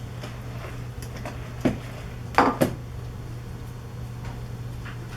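Kitchen dishes and utensils knocking: one clink just under two seconds in, then two sharper ones in quick succession about half a second later, over a steady low hum.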